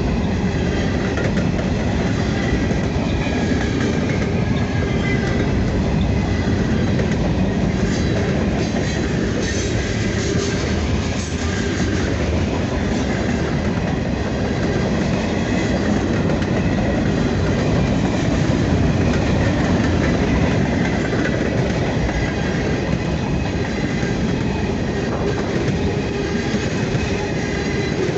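Norfolk Southern freight train rolling past, a loud, steady rumble of freight cars and wheels on the rails.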